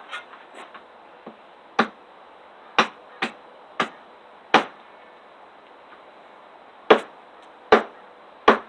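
A survival hatchet being driven into firewood with a hammer to split it: about eight sharp strikes at an uneven pace, with a pause partway through.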